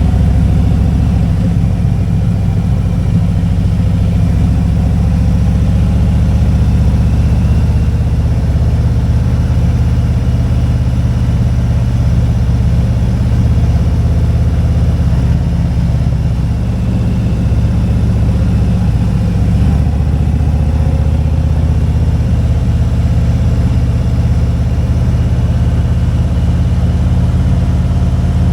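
Motorcycle engine running while riding, a steady low drone whose pitch shifts a few times as the speed changes.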